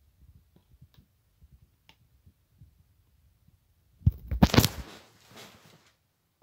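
Handling noise as DVD cases and the phone are moved about: soft low thumps and small clicks, then a loud burst of knocks and rustling just after four seconds in that fades over about a second.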